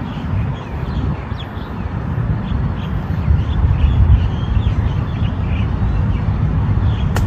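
Steady low rumble of wind buffeting the microphone on an open golf course, with faint bird chirps. Near the end comes one sharp click: a golf club striking the ball.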